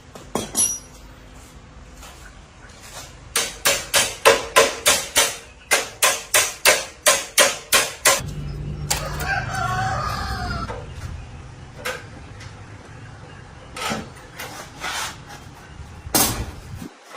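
A run of about fifteen hammer blows, roughly three a second, followed by a rooster crowing for about two seconds. A few scattered knocks come after.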